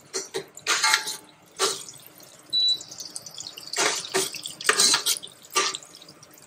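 Green chillies and whole spices frying in hot oil and ghee in a stainless steel pot, sizzling and spattering in short bursts about once a second as a slotted ladle stirs them.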